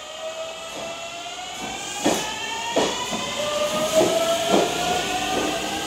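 JR Shikoku 8000 series electric limited express train pulling out. Its motors whine, rising steadily in pitch as it gains speed, and from about two seconds in the wheels clack over rail joints several times.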